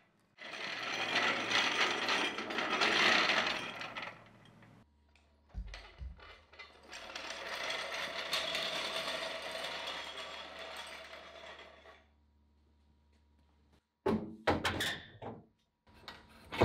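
Mechanical ratcheting and clicking from workshop tools and jack hardware, in two long stretches, then a few sharp clicks and knocks near the end.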